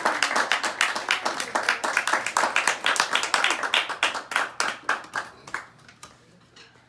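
Applause from a small audience, quick irregular hand claps that thin out and fade away near the end.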